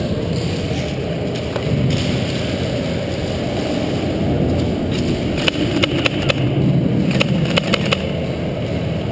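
Rumbling handling and movement noise from a body-worn action camera as an airsoft player moves through a warehouse arena, with a quick run of sharp clacks between about five and eight seconds in.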